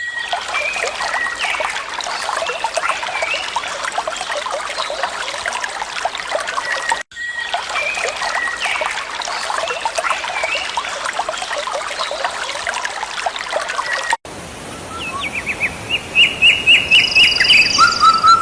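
Birds calling over a steady trickle of running water. About 14 s in the sound cuts to a quieter background with louder, clearer bird calls, including a quick run of repeated notes.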